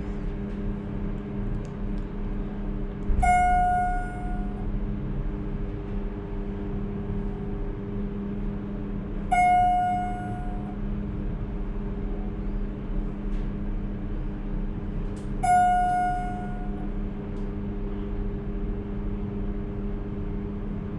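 Schindler MT/300A hydraulic elevator car descending with a steady low hum, while an electronic chime with a fading tone sounds about every six seconds, three times, as the car passes each floor.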